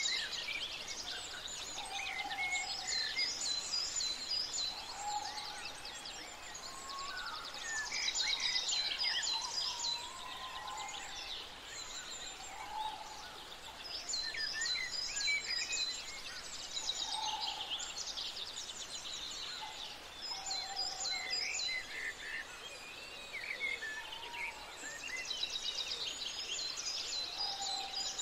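Birdsong chorus: many overlapping birds chirping and trilling rapidly, with short lower-pitched calls recurring every few seconds.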